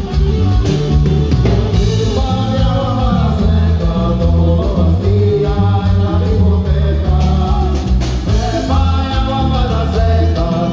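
A band playing, with a lead singer carrying the melody over a loud, heavy bass line.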